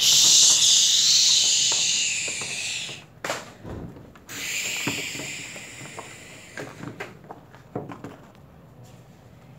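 A crashing-wave whoosh: a loud rushing hiss lasting about three seconds, then a second, shorter one about four seconds in. Light taps and rustles of the paper props being moved on the tabletop come between and after.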